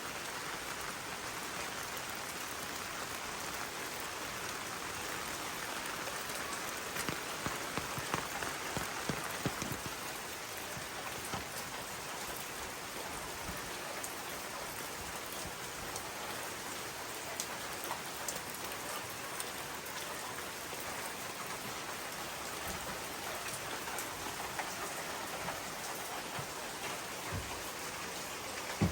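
Steady hiss of falling or running water, with scattered small taps and drops that are busiest about a quarter of the way in.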